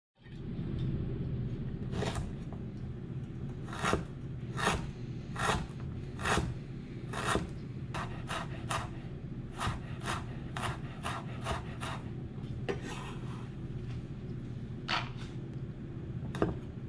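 Chef's knife chopping on a wooden cutting board: irregular sharp knocks of the blade on the board, sometimes in quick runs of three or four, over a steady low hum.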